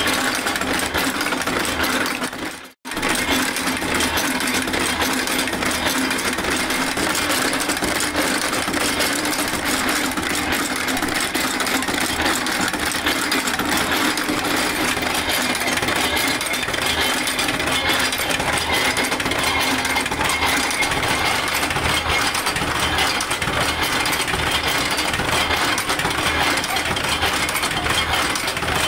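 Automatic chain-making machine running, a dense, steady metallic clatter as it bends steel wire into chain links. The sound cuts out for a moment about three seconds in.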